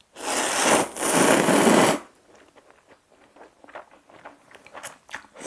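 A person slurping a mouthful of thin aglio e olio noodles: two long slurps in the first two seconds, then faint chewing clicks.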